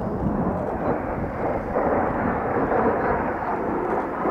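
Four Kawasaki T-4 jet trainers flying in diamond formation, their twin turbofan engines giving a steady rushing jet roar that builds over the first second and then holds.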